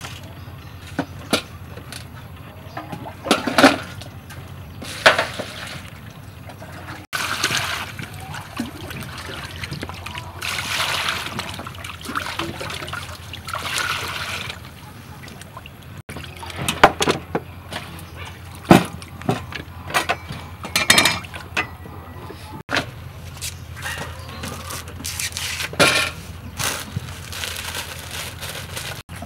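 Tap water pouring and splashing into a large metal basin while a whole chicken is washed by hand, from about 7 s to 16 s. Before and after that stretch come scattered knocks and clinks of ingredients being handled on a table, and near the end the rustle of corn husks being pulled off.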